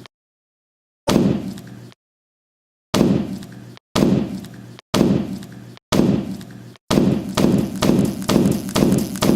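A series of heavy thuds, each with a short low ringing decay and cut off abruptly. The first comes after a second of dead silence, the next four about a second apart, and from about seven seconds in they quicken to about two a second.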